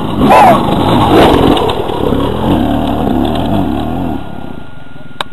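Dirt bike engine revving up and down as it rides over a rough trail, loudest in the first second and a half. About four seconds in it drops to a quieter, steadier engine sound, and a sharp click comes near the end.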